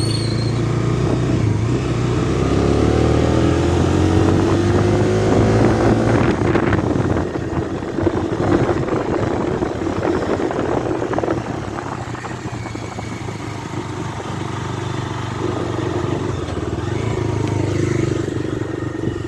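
Bajaj Dominar 250's single-cylinder engine running on the move, its pitch rising as the bike accelerates a few seconds in, then a rougher stretch of road and wind noise before it settles to a steady cruise.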